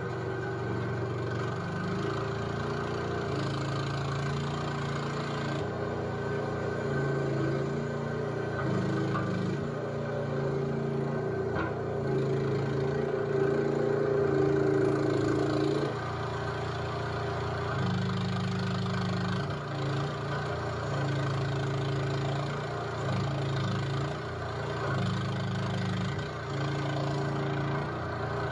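Chinese skid steer's engine running and working, its note stepping up and down every few seconds as the load and throttle change. It is a little louder about halfway through.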